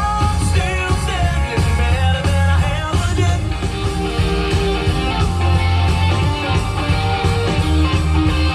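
A rock-style song with a singer over a heavy, steady bass line.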